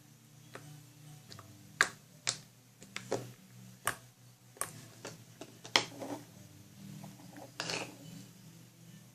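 Scattered sharp clicks and taps of small objects being handled and set down on a table, about eight in all, with a brief rustle near the end.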